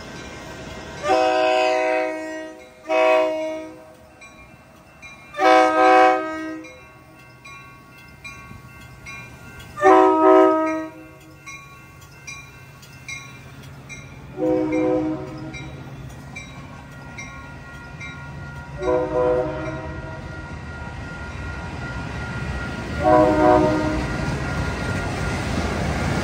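Commuter train horn sounding for a grade crossing: four loud blasts, the second one short, then three fainter blasts spaced about four seconds apart. Under them the rumble of the passing train builds, louder near the end.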